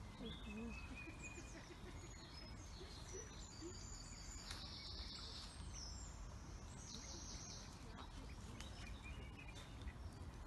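Birds chirping and calling in short high notes over a steady low outdoor rumble.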